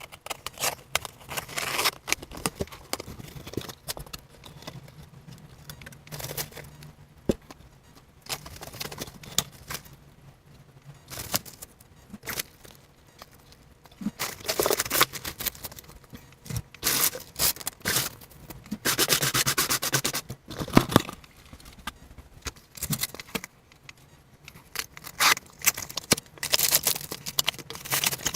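Unboxing a 3D printer kit: packaging and parts being handled, with irregular rustling, scraping and clicking. A longer rasping tear about two-thirds of the way through.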